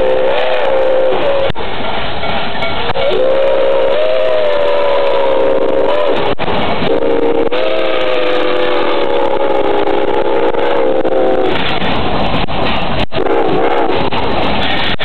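Nickel Plate Road 765, a 2-8-4 Berkshire steam locomotive, blowing its chime whistle as it passes close by: a short blast, two long blasts, then a brief toot near the end, each a chord of several tones. Underneath, the locomotive and its train make a steady loud rumble and hiss.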